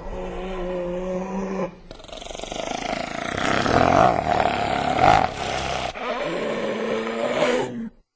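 Hyena calls: a low, held moaning call, then a louder rasping growl that builds over a few seconds, then another low moan that cuts off suddenly near the end.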